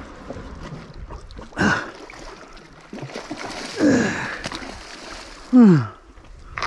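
A man's wordless cries while fighting a hooked shark on a rod: three sharp vocal sounds falling in pitch, about two seconds in, about four seconds in and near the end, the last the loudest. Water splashes faintly in between as the shark thrashes at the surface.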